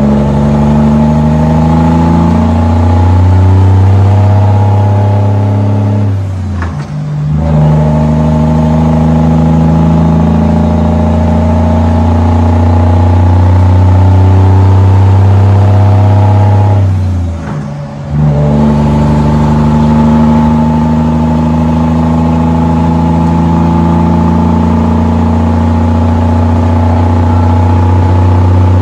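Cummins L10 inline-six turbo diesel through 6-inch straight-pipe stacks, pulling up through the gears with the truck at 36,500 lb gross. Its pitch climbs slowly through each gear and drops out briefly at the two shifts, about a quarter and two thirds of the way through.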